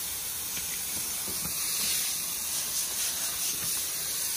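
Steady hiss of a hose spraying water onto freshly laid exposed-aggregate concrete, washing the surface off to bring up the stones.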